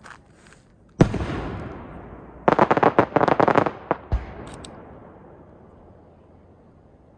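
Aerial fireworks shells bursting: a sharp bang about a second in with a long fading tail, then a quick run of many crackling reports and one more bang about three seconds later.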